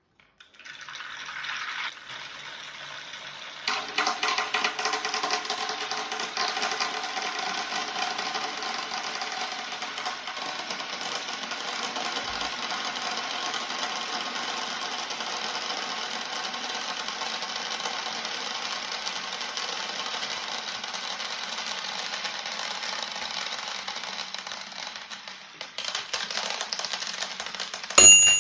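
Twisting-board toy being twisted, making a fast, continuous clicking rattle that gets louder about four seconds in and eases off near the end. It finishes with a sharp click and a brief ringing tone, the loudest moment.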